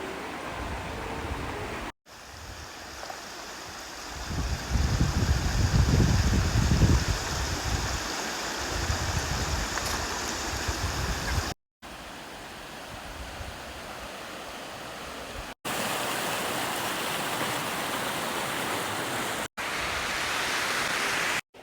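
Rushing water, a steady noise broken by several abrupt cuts. A louder low rumble rises over it for a few seconds near the start.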